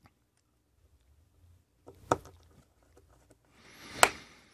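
Small screwdriver driving screws into the plastic base of a solar garden light: faint ticks and scrapes of handling, with a sharp click about two seconds in and a louder click near the end after a short rustle.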